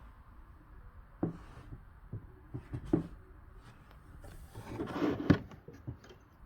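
Handling noises in a small room: scattered light knocks and clicks, then a rustle that swells and ends in a sharp knock about five seconds in.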